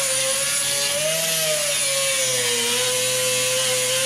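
Grinder grinding down fresh welds on a steel patch panel: a steady whine that wavers slightly in pitch as the disc bears on the metal, over a rough grinding hiss.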